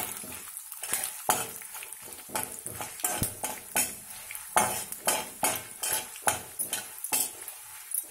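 Metal spatula stirring and scraping in an aluminium kadai, with many irregular clinks and scrapes, while oil sizzles steadily around frying dried red chillies, mustard seeds, chana dal and urad dal: the tempering (popu) being fried.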